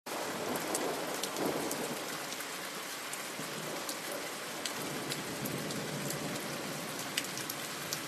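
Steady rain-like hiss with scattered faint ticks, low in level.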